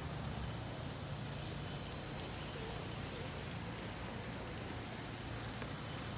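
Steady outdoor background rumble with a low hum and an even hiss, and no distinct events.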